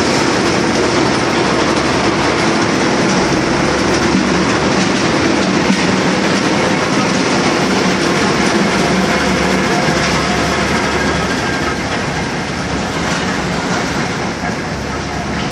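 Ice plant's crushing and conveyor machinery running loudly and steadily: a dense rattle over a low hum, easing slightly near the end. The ice is crushed here for loading onto fishing boats.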